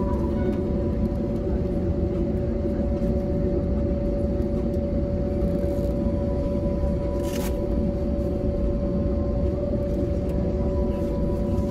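Cabin noise of an Airbus A320neo taxiing: a steady rumble with the even whine of its Pratt & Whitney PW1100G geared turbofan engines at idle thrust. A brief click about seven seconds in.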